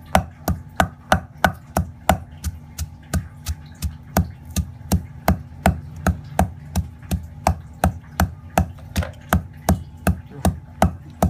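Wooden pestle pounding sliced lemongrass in a stone mortar: a steady run of sharp thuds, about three a second.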